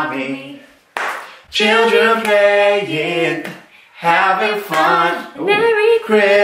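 Voices singing a short tune in long held notes, in a few phrases with brief pauses between.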